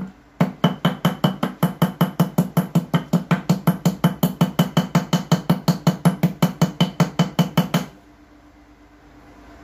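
Rapid, even blows, about five a second, striking a USB Type-C charger on a tiled floor, beginning after a brief break just at the start and stopping suddenly about eight seconds in.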